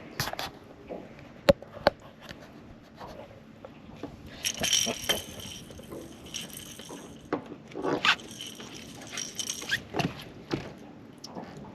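Handling noises while a hook is worked out of a blue catfish's mouth: two sharp clicks, then two longer rasping, scraping bursts with small knocks between.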